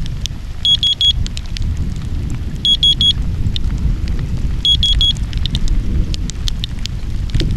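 Inspector handheld Geiger counter clicking irregularly, with sets of four quick high beeps about every two seconds from its alert, which sounds when the count rate passes the set threshold. Rain falls on and around the counter under a steady low rumble.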